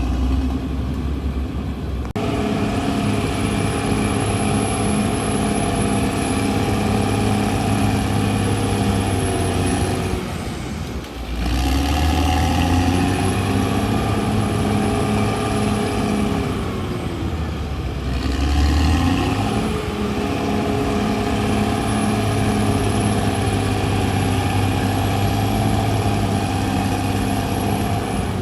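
Caterpillar D6R XL bulldozer's diesel engine working, its speed rising and falling in cycles: it revs up about two seconds in, dips briefly around the middle, then rises and falls twice more, with a thin high whine following the engine speed.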